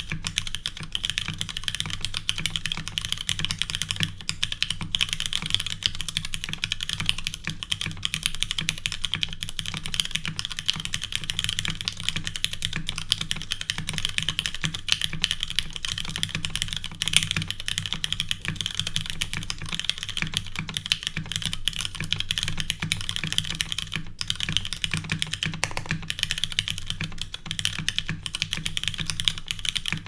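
Fast, continuous typing on a Hand Engineering Haus custom mechanical keyboard: lubed and filmed retooled Cherry MX Black linear switches in a top-mounted full aluminium plate with no sound dampening, under CRP keycaps. A dense, unbroken run of keystrokes.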